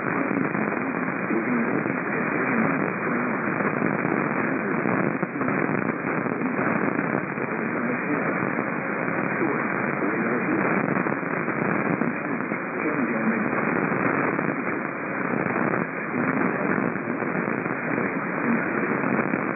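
Radio receiver tuned to a weak broadcast signal: a steady hiss of static with a faint voice barely coming through underneath.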